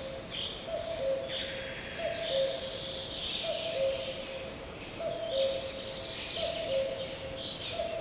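Birds singing: higher chirping songs over a low two-note call, the second note lower, repeated about every one and a half seconds.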